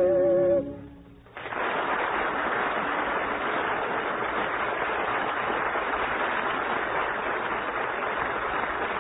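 The lullaby's last held note, with vibrato, dies away in the first second. About a second and a half in, studio audience applause breaks out suddenly and keeps going at an even level.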